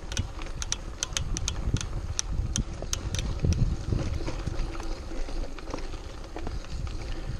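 Mountain bike rolling over rough, rocky dirt singletrack: a bumpy low rumble from the tyres and frame over stones, with sharp, irregular rattling clicks from the bike over the first three seconds.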